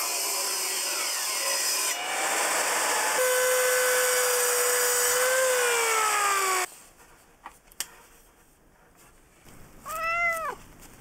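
Power saws cutting 12 mm plywood, first a table saw and then a sliding mitre saw, whose motor note falls as it winds down about six and a half seconds in. Near the end a cat meows once, a short call that rises and falls.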